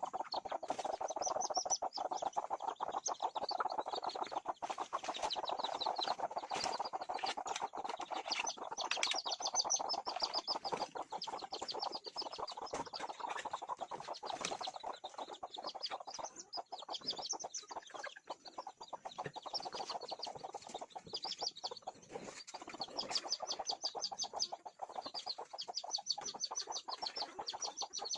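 Chickens clucking in a continuous dense chatter, with rows of short, high, rapid peeps coming and going over it.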